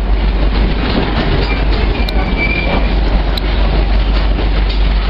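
Passenger train rolling along the track, heard from inside a coach with open windows: a steady rumble of wheels on rail. About two seconds in there is a short faint high wheel squeal, and a couple of sharp clicks.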